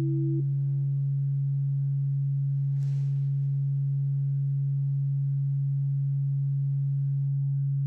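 A steady, pure low drone tone holds without change. A higher tone above it cuts off about half a second in, and a faint airy swish passes about three seconds in.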